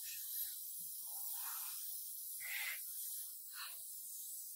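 Compressed-air blow gun hissing as it blows dust and thread waste off a sewing machine's automatic thread trimmer, with short louder gusts about one and a half, two and a half and three and a half seconds in.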